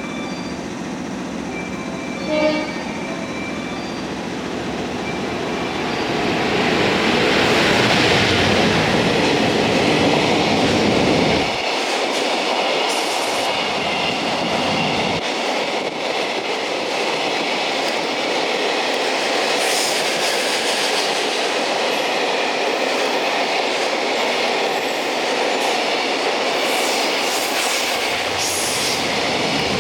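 JR Freight EF210 electric locomotive hauling a freight train gives a short horn toot about two and a half seconds in, then passes with a building rumble. A long string of freight wagons rolls by after it in a steady rumble, with brief high wheel squeals a few times.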